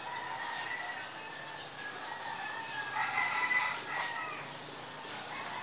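Rooster crowing, with its longest and loudest call about three seconds in.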